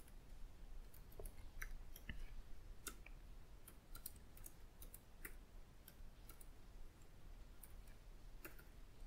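Faint, irregular clicks of computer keyboard keys being typed on, a few keystrokes a second with short pauses between.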